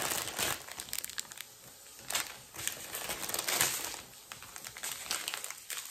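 Plastic packaging crinkling and rustling as it is handled, in several irregular bursts, loudest about three and a half seconds in.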